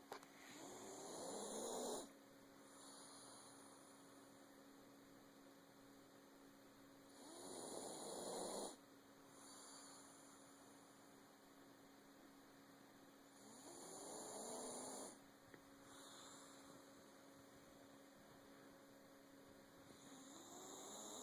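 Faint, slow snoring: four snores about six seconds apart, each building over a second or so and ending abruptly. A steady low electrical hum runs underneath.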